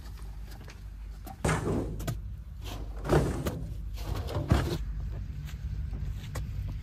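Hand shovels digging into sand and throwing it into tractor trolleys: several short scraping strokes, the loudest about three seconds in and again a second and a half later. A low steady engine hum runs underneath.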